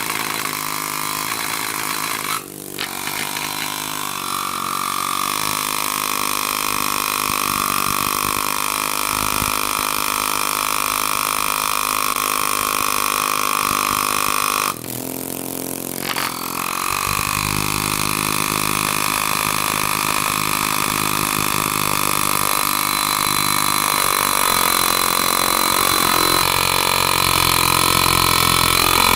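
Force pneumatic valve-lapping tool running on compressed air, turning a valve against its seat in the cylinder head without lapping paste. It is a steady mechanical hum that pauses briefly about two and a half seconds in and again for about two seconds midway.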